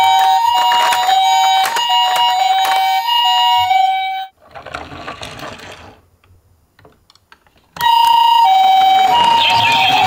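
Toy ambulance's electronic siren sounding the Japanese two-tone hi-lo ambulance pattern, high and low tones alternating about every half second. It cuts off about four seconds in, and after a short, quieter spell starts again near the end.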